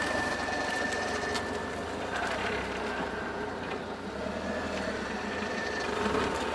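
A 2001 Audi TT turning sharply at low speed, its Haldex all-wheel-drive coupling making a grinding noise over the running car, with a steady high tone that stops shortly before the end. The grinding is the sign of a Haldex problem, which the owner takes to be old Haldex oil and a clogged filter.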